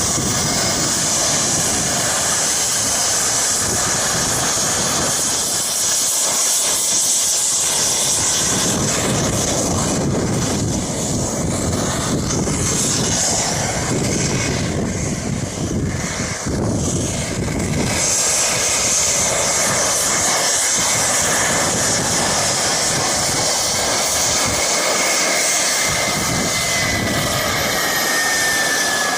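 Jet turbine engine of a hydroplane boat running, a loud steady hissing rush with a high whine. The hiss thins for a few seconds midway, and a faint whine slides down in pitch near the end.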